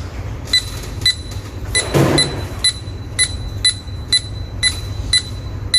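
Kaadas K9 digital door lock keypad beeping once per key press, a short high beep about every half second, as a PIN code is keyed in. There is a brief thud about two seconds in.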